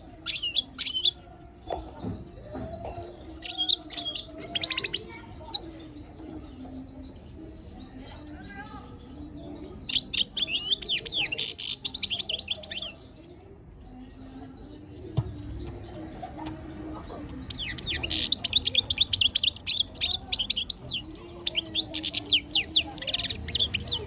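European goldfinch singing in spells of rapid, high twittering, with a few short phrases early on, a longer run around the middle and the longest, densest run near the end.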